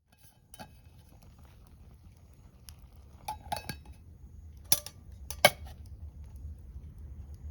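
Camp cookware and utensils clinking and knocking together, a handful of sharp clinks with the loudest a little past halfway, over a low steady rumble.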